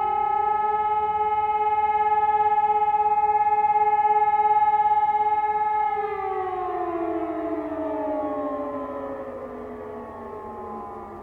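Two E57 electromechanical motor sirens sounding the fire-alarm test signal. They reach full pitch right at the start, hold a steady howling tone for about six seconds, then wind down, the pitch falling and fading as the rotors slow. Another siren keeps a steady tone a little longer in the distance.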